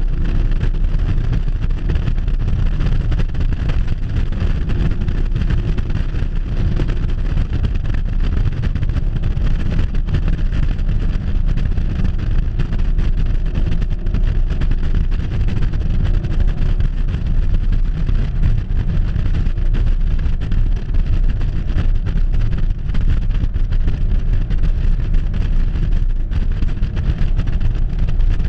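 Car at speed, heard through a camera mounted on the outside of the body: a loud, steady low rumble of wind buffeting the microphone mixed with engine and road noise.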